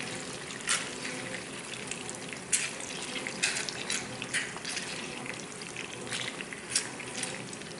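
Pieces of blacknose shark and black margate frying in a pan of oil and butter: a steady sizzle with scattered sharp pops, as lemon juice drips into the hot fat.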